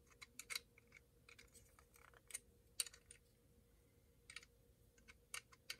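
Near silence: room tone with a dozen or so faint, scattered light clicks.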